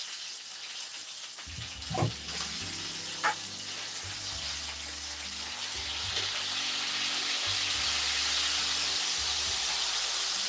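Chicken breasts frying in a pan: a steady sizzle that grows louder about halfway through as tongs turn the pieces. Two short knocks come in the first few seconds.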